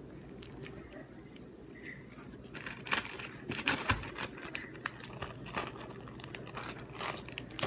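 Foam slime (floam) being squeezed and handled, giving quick crinkling, crackling clicks that grow denser about halfway through, with a dull thump in the middle.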